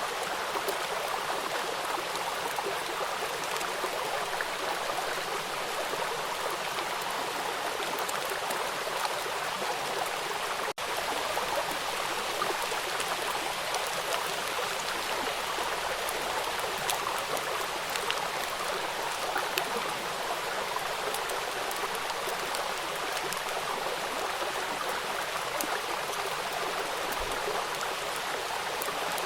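Steady rain, an even hiss with scattered sharp drop ticks through it. It cuts out for an instant about eleven seconds in.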